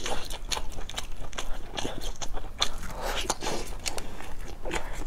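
A person biting into and chewing small grilled sausages close to the microphone, with many short, irregular mouth clicks and snaps.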